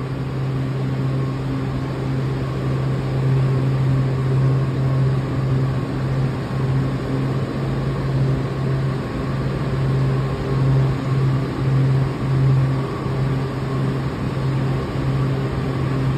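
Steady low electrical hum of a Washington Metro 7000-series train standing at the platform with its doors open, its onboard equipment running, over a wash of station noise.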